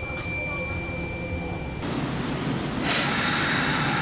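Compressed air hissing out as a Kintetsu 1252-series train's air brakes release, starting about three seconds in. Before it comes a steady high tone over the low rumble of a train pulling away.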